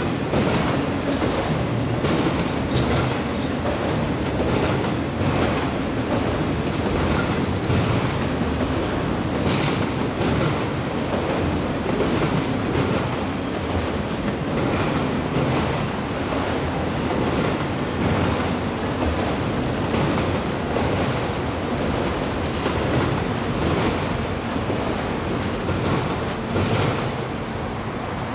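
Autorack freight cars rolling past on the rails: a steady rumble and rattle of wheels and car bodies, with scattered clanks and clicks. It eases slightly near the end as the last car goes by.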